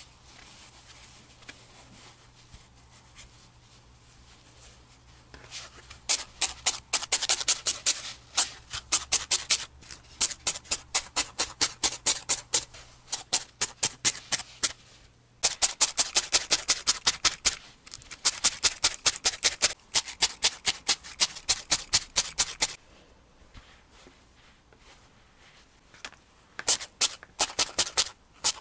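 Quiet rustle of wool roving being wrapped around a foam core, then a felting needle stabbing repeatedly into the wool: quick, sharp pokes several a second, in long runs broken by short pauses.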